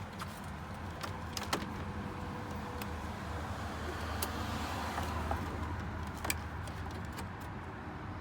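Scattered clicks and knocks of a light switch and plastic dashboard trim being handled and fitted back into a Volvo truck's dash, over a steady low hum.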